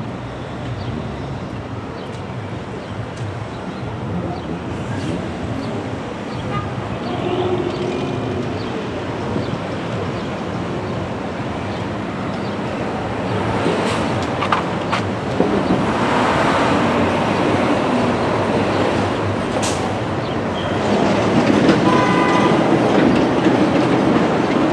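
Steady rumble of passing vehicles, growing louder in the second half, with a short high pitched tone near the end.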